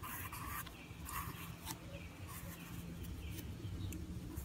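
Pencil scratching on paper in a few short strokes, followed by several faint, high chirping calls.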